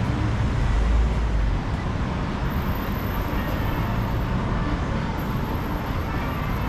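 City street traffic: a vehicle's low engine rumble close by for the first second and a half, then a steady din of traffic.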